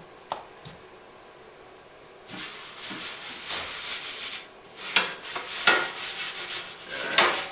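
Flour being scattered and spread across a metal baking sheet by gloved hands: a rough, scratchy rubbing that starts about two seconds in, with a few sharper scrapes.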